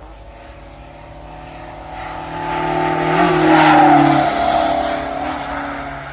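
A motor vehicle passing by: a steady engine note grows louder to a peak around the middle, then dips slightly in pitch and fades away.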